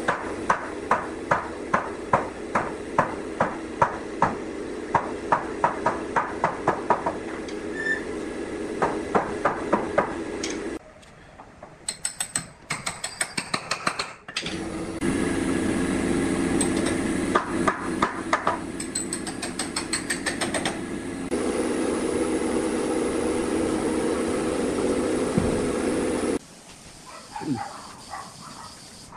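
Wooden mallet and then a hammer knocking timber joints of a wooden frame together: long runs of regular blows, about two to three a second, broken by short pauses, over a steady hum. The blows stop a few seconds before the end.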